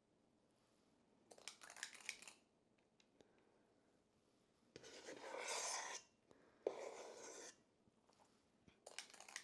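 Metal cookie scoop scraping through thick chocolate batter against a stainless steel bowl, its spring-loaded release sweeping as portions are dropped: four short quiet bursts of scraping, the longest about five seconds in.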